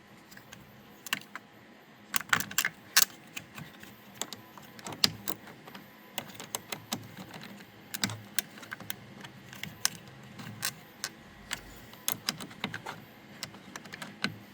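Irregular sharp metallic clicks and clinks of a wrench being worked onto a car battery terminal's clamp screw, tapping and knocking against the terminal hardware.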